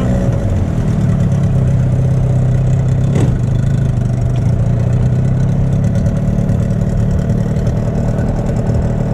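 A boat's outboard motor running steadily at low revs, with a single short knock about three seconds in.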